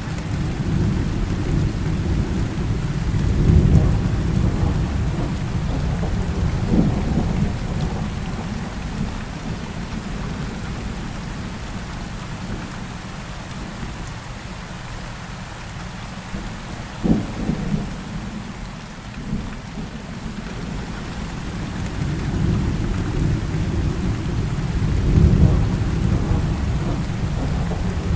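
Heavy rain falling steadily under a thunderstorm, with deep rolls of thunder swelling and fading twice and a couple of sharper cracks of thunder about 7 and 17 seconds in.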